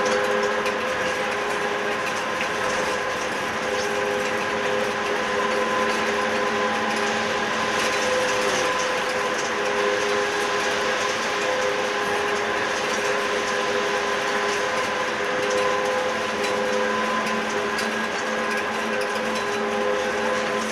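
Electric trolleybus running at a steady speed, heard from inside at the front: an even hum with several fixed tones from its electric drive over the noise of the tyres on the road.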